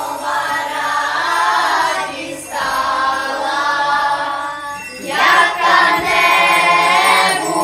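Children's choir singing a Christmas song together in phrases, with short breaths about two and a half seconds in and again near five seconds, the singing louder after the second break.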